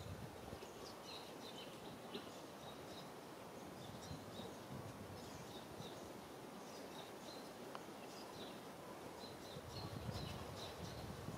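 Faint outdoor ambience: many short, high chirps scattered over a steady background hiss, with a low rumble swelling briefly near the end.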